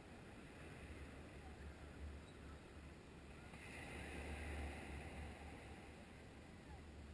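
Small waves washing onto a sand beach, one breaking and rising in hiss about four seconds in, under a low wind rumble on the microphone.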